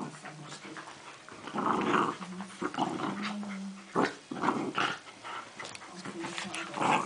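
Two dachshunds play-fighting, growling in repeated bursts, with a sharp click about four seconds in.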